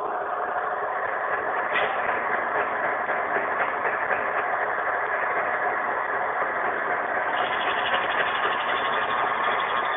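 Milling machine running steadily with the cutter feeding into the cylinder head's camshaft bearing cap, taking a slow, shallow pass; a steady mechanical whine with several fixed tones.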